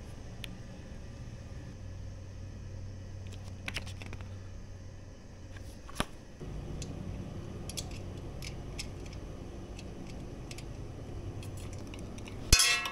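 Light rustling and clicking of hands handling a paper manual and small metal bike parts over a steady low hum, with a sharp click about halfway. Near the end, a tool clanks loudly against metal fender hardware.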